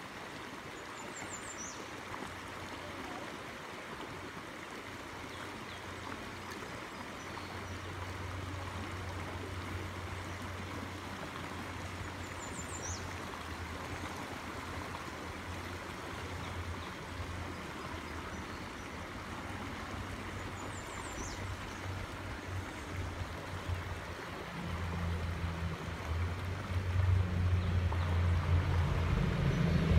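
Shallow stream flowing over rocks, a steady rush of water, with three brief high chirps spread through it. A low hum joins about a quarter of the way in and grows much louder over the last few seconds.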